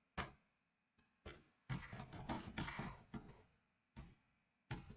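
Faint, scattered keyboard keystrokes: slow, irregular typing with a short flurry in the middle.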